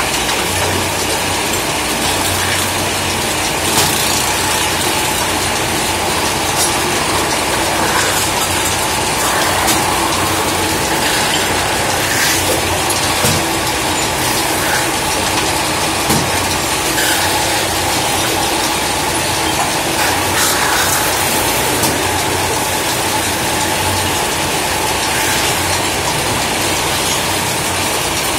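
Belt-driven metal-spinning lathe running, with a hand tool pressed against a spinning aluminium disc as it is formed into a cooking pot. The sound is a loud, steady mechanical noise with short clicks scattered through it.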